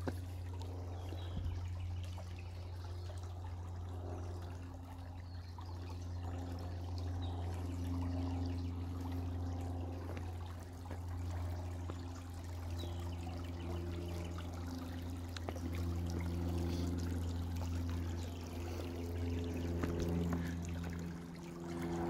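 Shallow creek water trickling and splashing over stones.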